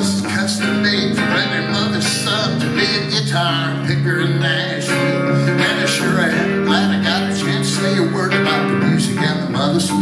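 Solo guitar played live: an instrumental passage of quick picked notes mixed with strummed chords.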